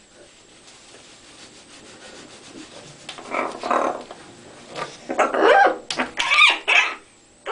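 Young macaw muttering: after about three faint seconds, a run of short babbling calls with wavering pitch, loudest between about five and seven seconds in.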